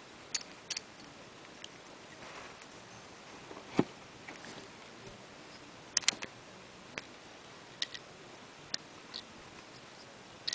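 Small plastic and metal parts of a Knight Virgo Beyblade clicking and tapping against each other as they are fitted together by hand: scattered light clicks, with sharper ones about four and six seconds in.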